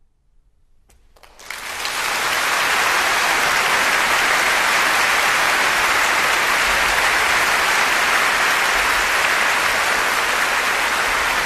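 About a second of near silence, then audience applause in a concert hall. It starts and swells within a second to steady, dense clapping.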